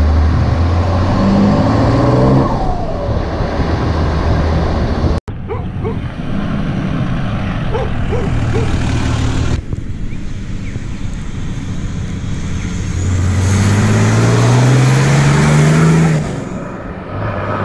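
Vehicle engine accelerating, its pitch rising and then dropping at a gear change. After a cut, a lifted Nissan Patrol GU's diesel engine runs as the truck drives toward the camera, then drives past and accelerates, rising steadily in pitch.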